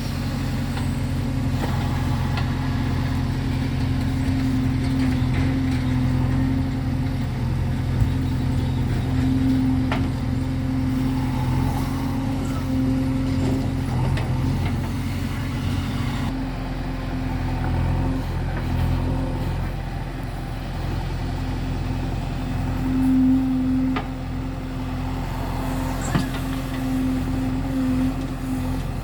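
Heavy machinery diesel engines, a backhoe loader working alongside tractors, running steadily as a low drone. The drone changes tone about halfway through, and a few knocks come through.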